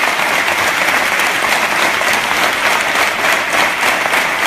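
A large indoor crowd applauding steadily at the end of a speech, the clapping falling into a rough beat near the end.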